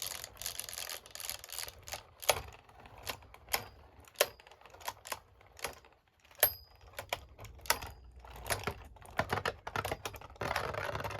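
Beyblade Burst tops clashing in a plastic stadium: sharp, irregular plastic clacks, some with a brief high ring.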